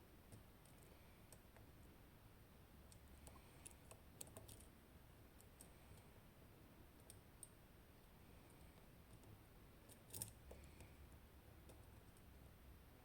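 Faint, scattered clicks of a lock pick working the pins of a DOM RS Sigma pin-tumbler cylinder under clockwise tension, with one sharper click about ten seconds in.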